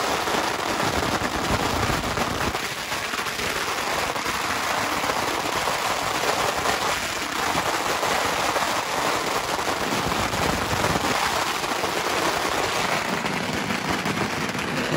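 A long string of firecrackers going off in an unbroken, rapid crackle of small bangs.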